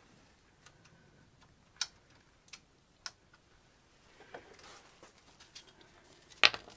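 Scattered sharp clicks and taps of hand tools and metal parts being handled, four spread over the first three seconds, then faint rustling and a louder click near the end.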